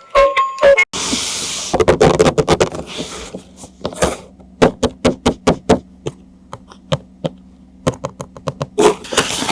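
Toy packaging being handled: a short burst of rustling about a second in, then a long run of irregular clicks and taps of plastic, over a faint low steady hum.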